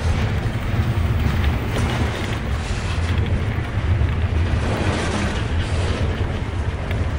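HO scale model passenger train running past close by: the steady low rumble of the locomotive's motor and the cars' wheels rolling along the track, with a few faint clicks.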